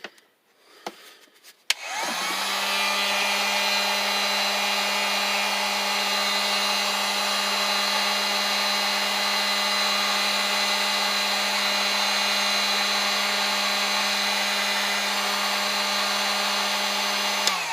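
Drill Master dual-temperature heat gun switched on with a click, its fan motor spinning up and then running steadily on the low setting with an even hum and blowing hiss. Near the end it is switched off and the hum winds down with a falling pitch.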